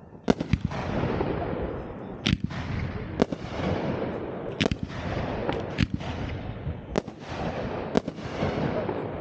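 New Year's Eve fireworks going off: about eight sharp bangs, a second or so apart, over a continuous crackling hiss.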